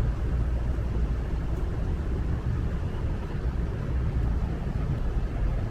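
Steady low rumble with a faint hiss above it: outdoor background noise with no single clear event.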